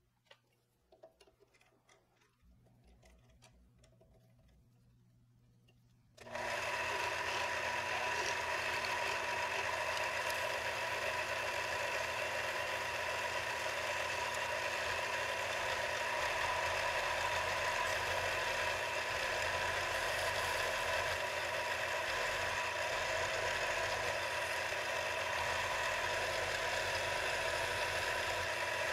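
Small metal lathe starting up about six seconds in and then running steadily, its motor giving a steady whine with several held tones. Before it starts, a few light metallic clicks as a small steel pin is handled and set in the three-jaw chuck.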